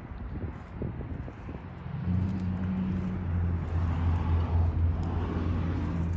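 A vehicle's engine running close by, a steady low hum that comes in about two seconds in and holds.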